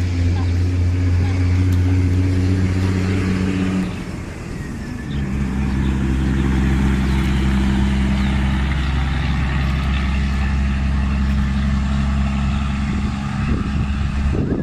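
An engine running steadily with a low, even hum. It dips about four seconds in, then carries on at a slightly different pitch.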